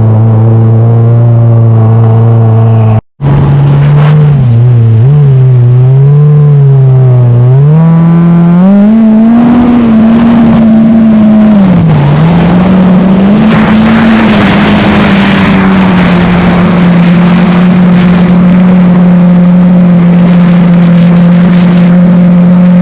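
Kommander GP1 stand-up jet ski engine running hard, very loud and close. Its pitch wavers, climbs about eight seconds in, dips briefly around twelve seconds, then holds steady at higher revs. The sound drops out for a moment about three seconds in.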